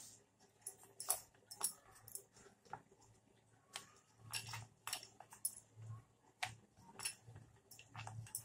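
Rolling pin working a ball of wheat dough flat on a wooden rolling board: irregular sharp clicks and clinks with soft low knocks as the pin moves back and forth over the board.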